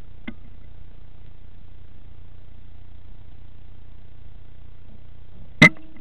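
A single sharp crack of a Weihrauch HW100 KT PCP air rifle firing at a rat, about five and a half seconds in, with a short ring after it. A faint click comes just after the start, and a steady low hum runs underneath.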